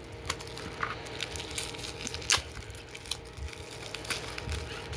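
Toy packaging being handled and opened: light crinkling with a few sharp clicks, the loudest about two seconds in.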